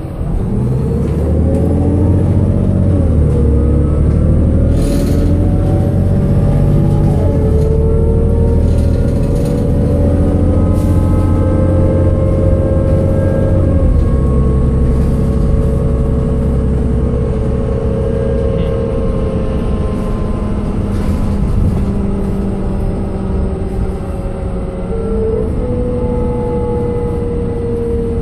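Cummins Westport ISL G natural-gas inline-six of a 2008 New Flyer C40LF bus heard from inside the cabin, pulling the bus along. The engine pitch drops three times in the first half as the ZF Ecomat automatic transmission upshifts, then holds steadier, with a faint turbo whistle above the drone.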